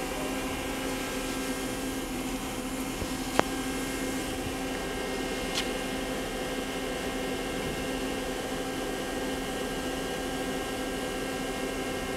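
Star SV-32J CNC Swiss-type lathe running with a steady, even mechanical hum and whine, with a sharp click about three seconds in and a fainter one a couple of seconds later.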